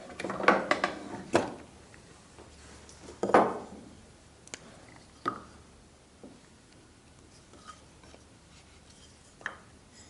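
Hand marking-out tools being handled on a wooden workbench: a quick flurry of clicks and knocks, a louder knock a little over three seconds in, then a few scattered light taps.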